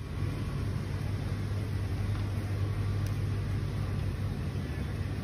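Shopping trolley being pushed across a supermarket floor: a steady low rumble from its wheels.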